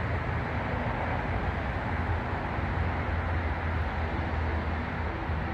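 Steady low rumble of a distant diesel freight locomotive approaching slowly, with a few faint steady tones over a low hum.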